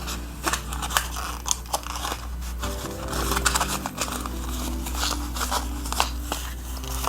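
Plastic packaging handled and opened by hand: repeated sharp clicks and crinkling, over soft background music.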